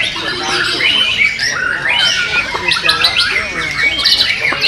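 Several white-rumped shamas (murai batu) singing at once in competition: dense, overlapping runs of fast whistled and chattering phrases with no pause.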